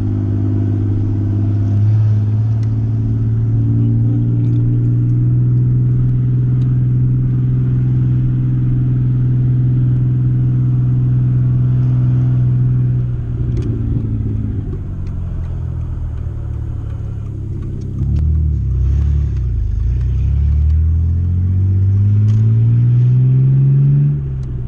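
Car engine heard from inside the cabin while driving: a steady drone at constant speed, easing off about halfway through with a rougher low rumble, then pulling up again with a rising pitch near the end.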